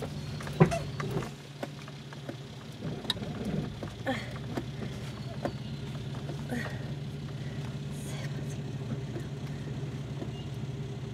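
A four-wheel drive's engine idling steadily, heard from inside the cabin, with knocks and rattles in the first few seconds.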